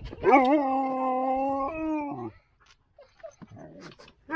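Siberian husky giving one long, howl-like whine, held at a steady pitch for about two seconds and dropping in pitch as it ends.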